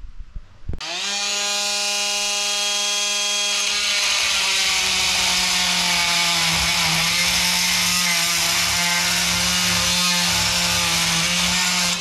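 Compact cordless rotary tool spinning up about a second in and holding a steady high whine. From about three and a half seconds its bit grinds against a metal piece clamped in a vise, adding a loud hiss, and the motor pitch dips slightly under the load.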